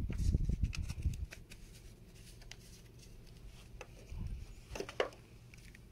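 Handling noises of a flintlock pistol being primed with fine powder: a low rustle at first, then light scraping and small clicks, with a sharper double click about five seconds in.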